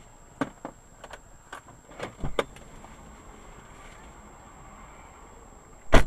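A run of light clicks and knocks inside a stationary car, then one much louder thump about six seconds in, over a faint steady high whine.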